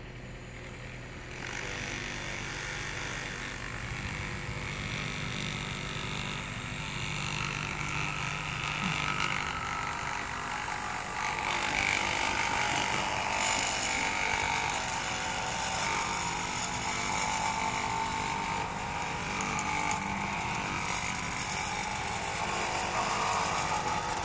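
Rattle Stick cordless vibrator on a walking groover's pole, buzzing steadily as the groover is pushed through wet concrete to cut a control joint. It comes on about a second and a half in and grows gradually louder.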